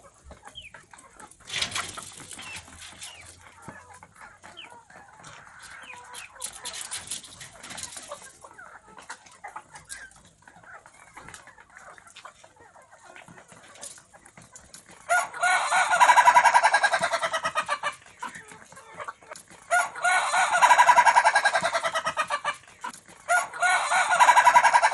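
Young ayam ketawa (laughing chicken) rooster still learning its crow: softer clucks at first, then three long bouts of rapid, stuttering, laugh-like crowing in the second half, the loudest sounds here.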